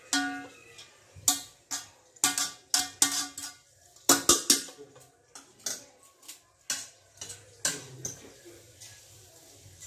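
A metal skimmer spoon knocking and clinking against the rim of a metal cooking pot as cooked rice is tipped in. There are about a dozen irregular strikes, and the first one rings briefly.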